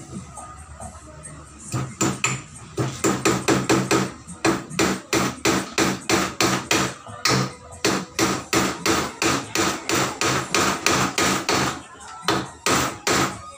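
Hammer blows on a wooden table frame: a fast, steady run of knocks, about three to four a second, starting about two seconds in with a short pause near the end.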